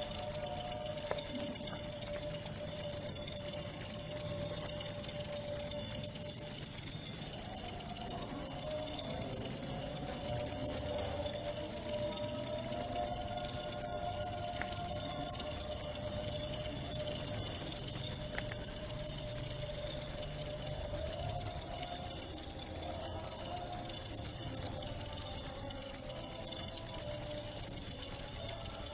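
Crickets chirping in a continuous fast, even trill of high-pitched pulses.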